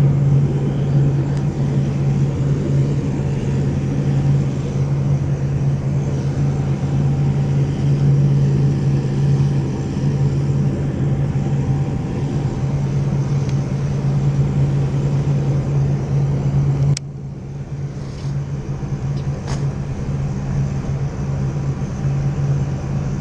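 Steady low engine hum, like motor traffic, with a sharp click about seventeen seconds in, after which the hum is a little quieter.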